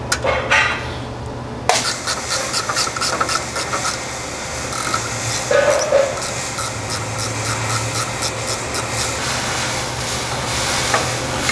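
Ratcheting 12 mm wrench clicking rapidly as the small bolts holding the U-joint heat shield are backed out, starting about two seconds in, over a steady low hum.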